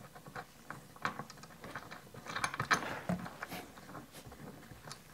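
Bolt with a chamfered washer being screwed by hand through a harness shoulder-strap loop into a roll-cage fixing: faint, irregular small metallic clicks and ticks, busiest around the middle.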